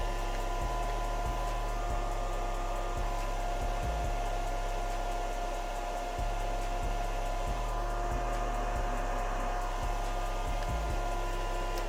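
Young Nails nail dust collector's suction fan running steadily on its single speed setting: an even rush of air with a steady motor whine.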